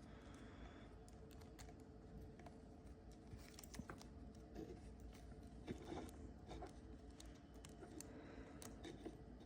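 Faint clicks and rubbing of a tiny drone motor and its plastic frame being handled, as the motor shaft is worked through a slot in the frame.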